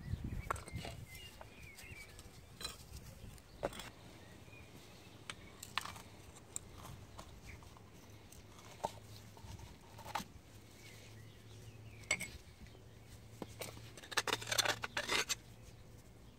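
Hand tools clinking and scraping against the metal parts of a rear shock absorber being taken apart: scattered sharp taps, with a quick run of clicks near the end.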